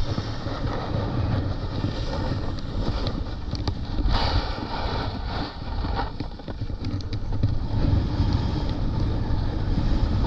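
A snowboard riding over packed, groomed snow, its edges scraping and chattering, with wind buffeting the camera microphone. There is a louder scraping rasp about four seconds in.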